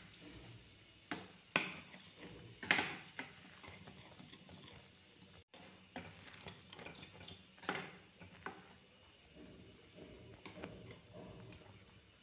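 A metal spoon clicks and scrapes irregularly against a kadhai while thick jaggery syrup is stirred at the boil. A few sharper taps come in the first three seconds, and smaller clicks come in bunches later.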